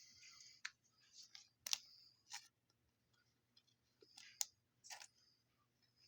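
Faint rustling and a few sharp clicks of trading cards being slid and flipped through by hand, with the loudest clicks about two thirds of a second, just under two seconds, and about four and a half seconds in.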